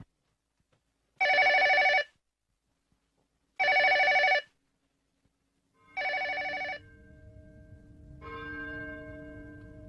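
Telephone ringing with an electronic ringer: three short trills about two and a half seconds apart, going unanswered. After the last ring, soft music with held notes comes in.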